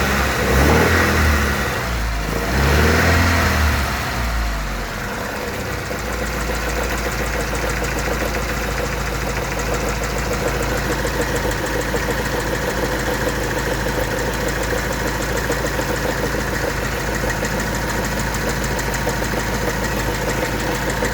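Car engine revved twice briefly, then idling steadily with a fast, even knock running through it: the strange noise that the owner says is not the valves.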